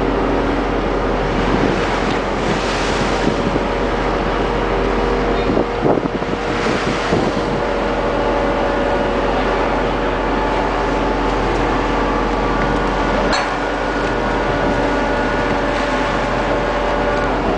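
Steady drone of an offshore vessel's machinery, with a constant hum and wind buffeting the microphone. A single sharp knock comes about three-quarters of the way through.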